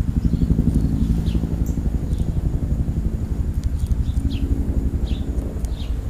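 A steady low engine drone runs throughout, with several short, high, falling bird chirps over it.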